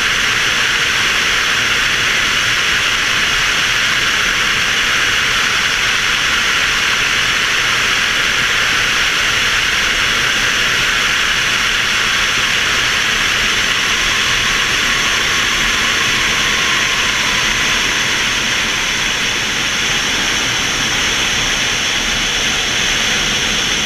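Rush of air past a camera mounted on a sailplane's wing in flight: a loud, steady hiss that dips slightly near the end.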